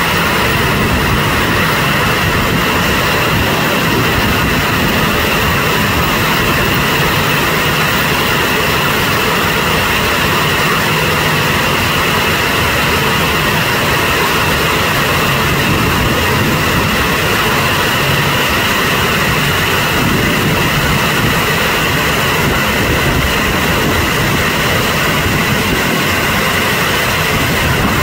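Rice-loading conveyor and chute running, with a steady loud mechanical roar and hiss as loose rice pours down the chute into a barge's hold.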